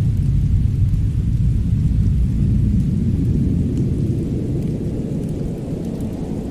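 Winter snowstorm and fireplace ambience: a deep, continuous rumble that swells a little and then eases toward the end, with a few faint crackles.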